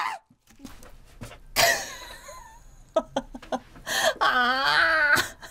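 A woman's non-speech vocal reactions to handling live, prickly shrimp: a sudden loud cry about one and a half seconds in, then a long quavering whimper near the end.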